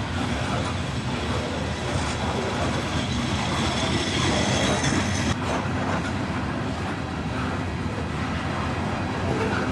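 Freight train of covered hopper cars rolling past: steady rumble of steel wheels on the rails, with clacking over rail joints and a faint high wheel squeal around the middle.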